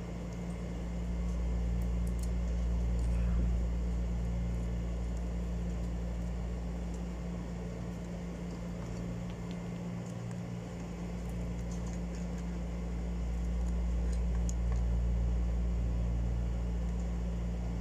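Steady low mechanical hum, easing briefly about ten seconds in, with a few faint clicks of small metal parts as a spinning reel is worked on by hand with pliers.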